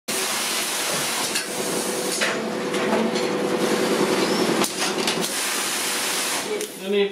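Plastic moulding machine running: a steady mechanical hum with a hiss over it, and a few sharp clanks, one about two seconds in and two more around five seconds in.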